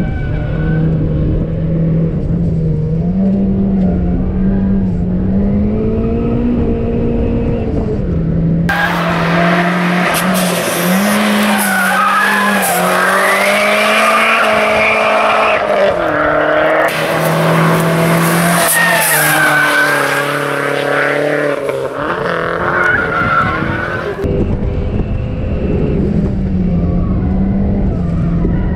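A rally sprint car's engine revving hard inside the cabin, its pitch climbing and dropping as the driver works through the gears. About a third of the way in, the sound switches to the car heard from the roadside: engine at full revs with tyres squealing through the corner. Near the end it is back to the engine note inside the cabin.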